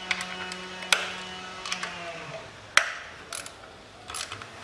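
Ratchet wrench clicking and knocking in irregular bursts as the ignition-coil hold-down bolts are loosened, with one sharp metallic click about three seconds in.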